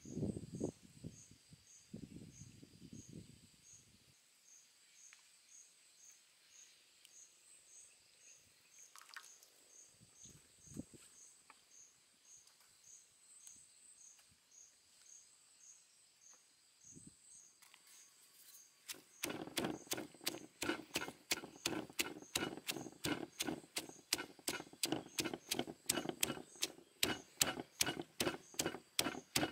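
Stone pestle pounding sliced lemongrass and chilies in a stone mortar, in even strikes about three a second, starting about two-thirds of the way in. Before the pounding, a quiet stretch with an insect chirping in faint, steady high pulses.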